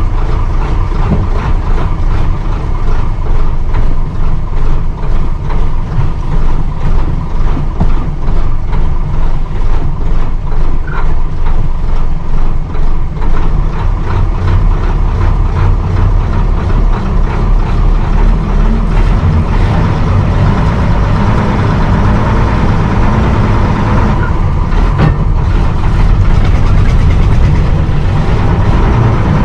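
1959 Bedford SB1 bus engine running, heard from inside the passenger saloon as the bus is driven slowly. The engine gets louder about two-thirds of the way through, and there is one sharp knock near the end.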